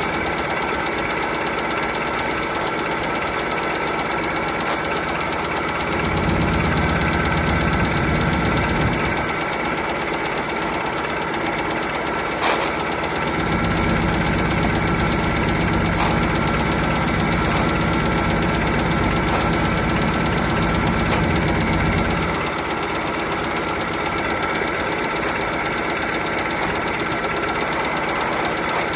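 Mercruiser engine running steadily, pumping cooling water through a newly replaced Alpha water pump. It runs deeper and louder for a few seconds partway through, then again for about eight seconds.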